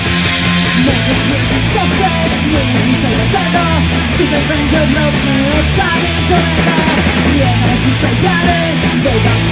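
Rock band playing a punk rock song: electric guitar, bass guitar and drums, with a voice singing the chorus in Polish.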